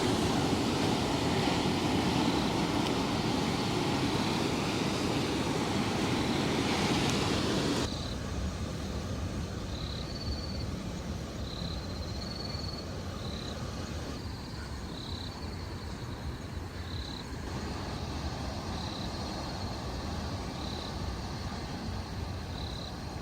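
Steady outdoor rushing noise, which drops suddenly about eight seconds in to a quieter ambience with short, high chirps repeating every second or two.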